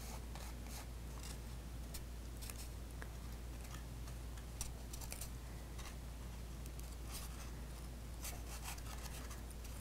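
Faint, scattered rustling and soft clicks of paper being handled as glued paper tabs are pressed and held in place, over a steady low hum.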